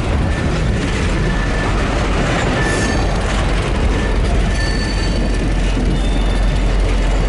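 Freight train of covered hopper cars rolling past close by: steel wheels rumbling on the rail, with short high wheel squeals now and then.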